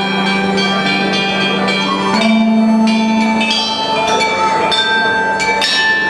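Traditional Chinese music of struck bronze chime bells, notes ringing out and overlapping over a low held tone that steps up about two seconds in.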